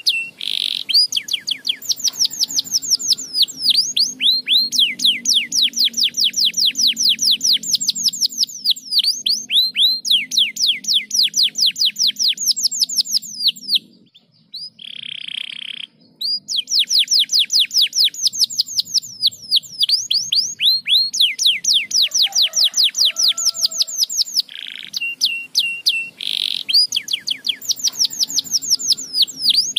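Domestic canary singing in long, rapid trills of quickly repeated downward-sweeping notes. The song breaks off for about two seconds halfway through, then the trilling resumes.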